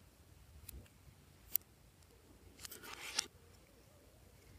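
Metal scissors snipping pieces off a lipstick stick: two sharp snips about a second apart, then a short scraping cut about three seconds in.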